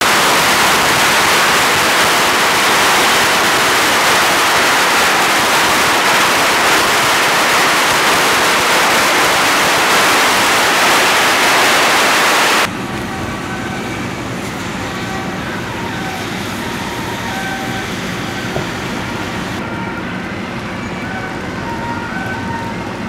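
A long string of firecrackers going off in a loud, continuous, dense crackle. It stops abruptly about halfway through, giving way to a quieter steady background with short held tones.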